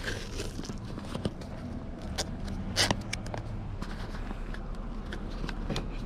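White adhesive tape being pulled off its roll and wrapped around a plastic rod tube, a run of short scratchy rips and handling scrapes, the loudest rip about three seconds in. A steady low hum runs underneath.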